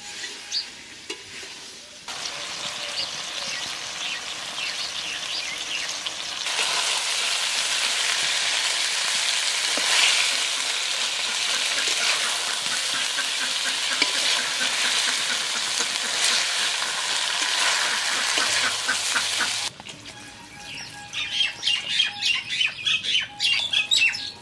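Stuffed pointed gourds and chicken keema sizzling in hot oil in a kadai, stirred and scraped with a metal spatula. The sizzle swells a few seconds in and stays loud until near the end, then drops to a quicker run of sharp scraping and clinking strokes.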